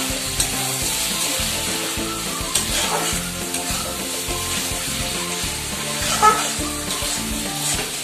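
Eggplant and potato curry sizzling in a kadai while a spatula stirs it, with scrapes of the spatula against the pan, the sharpest about six seconds in.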